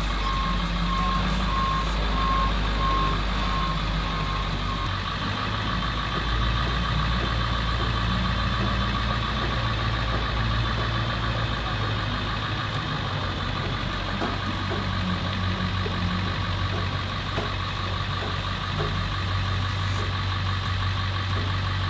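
School bus engine running from inside the cab as the bus drives slowly forward, its low drone shifting a couple of times. A rapid beeping sounds for the first five seconds or so.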